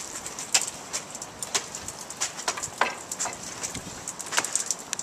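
Footsteps climbing wooden stair treads: a string of irregular hollow knocks, a few each second.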